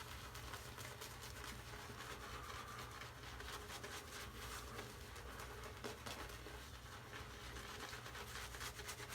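Synthetic shaving brush swirling wet shaving-soap lather, a faint scratchy swishing with a fine crackle of bubbles.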